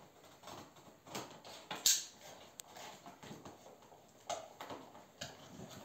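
Cardboard and plastic toy packaging being handled and worked open: irregular rustles and small clicks, with one sharp snap about two seconds in.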